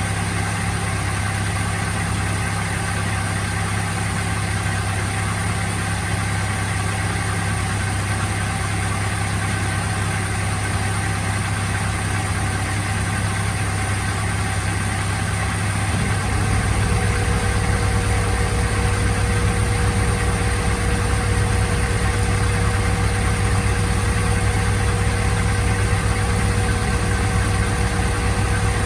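Mazda MX-5 engine idling steadily while its manual gearbox is run through a flush with cleaning fluid. About halfway through the sound gets a little louder and a new steady hum joins in.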